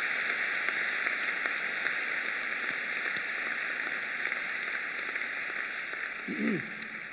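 Audience applauding, a steady even clatter of many hands that dies away near the end, where a brief voice is heard.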